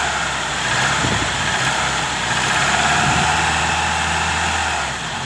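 Car engine running steadily with the air-conditioning compressor engaged and no belt squeal: the newly tensioned AC drive belt is no longer slipping on the compressor pulley.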